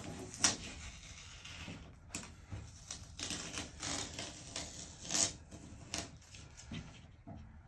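Tape hinge being peeled off a truck tailgate and balled up: irregular crackles and rustles, with a sharper snap about half a second in.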